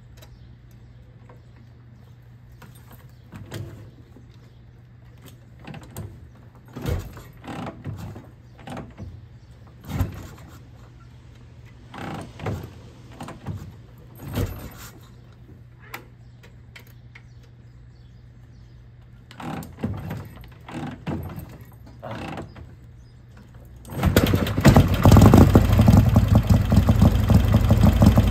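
A 1957 Harley-Davidson Panhead V-twin being kick-started: a long run of separate kicks, each a short rush of sound as the engine is spun over, then about 24 seconds in it catches and runs loud and steady, the first start after its revival.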